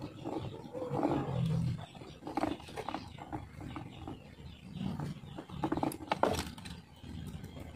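Pliers working a twisted binding wire tight, with a sharp click about six seconds in. A low rumble comes and goes in the background.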